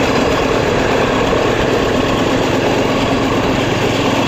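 An engine running steadily with a constant drone, mixed with rushing noise as the camera moves along the railway track.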